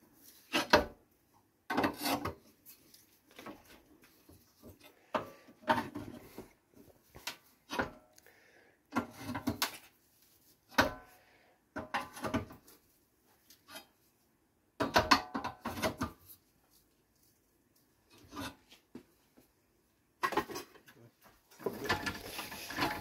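Sheet steel being handled and worked on a bench: irregular short bursts of scraping and rattling metal, with pauses in between.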